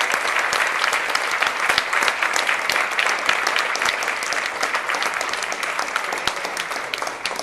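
An audience applauding: many hands clapping together in a dense, steady patter that eases off slightly toward the end.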